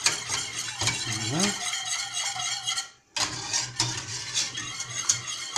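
Wire whisk beating a thin pastry-cream mixture of milk and cornstarch in a stainless steel saucepan: a rapid, continuous clinking and scraping of the wires against the pan. The sound cuts out for a moment about halfway through, then resumes.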